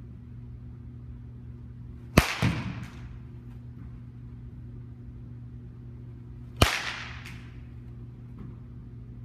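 Two sharp cracks of a baseball bat hitting a ball, about four and a half seconds apart, the first followed by a brief softer clatter, over a steady low hum.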